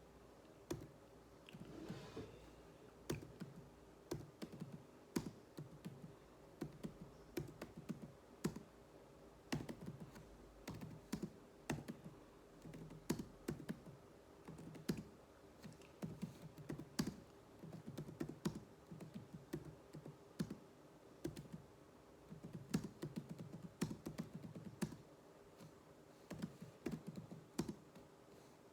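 Computer keyboard being typed on in irregular runs of quick keystrokes with short pauses between them, as in a touch-typing drill.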